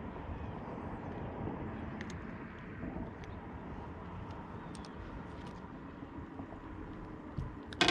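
Steady low rumble and hiss with a faint steady hum and a few light clicks, ending in a sharp clatter near the end.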